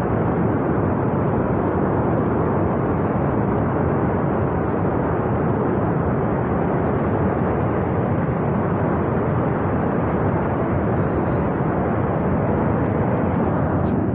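Landslide rock and debris pouring down a steep mountain gorge: a steady, dense rumbling noise with no pauses or separate impacts.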